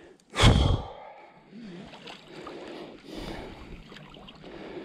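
Hooked fish splashing and thrashing at the surface close to the bank, with one loud splash about half a second in, then quieter splashing and lapping water.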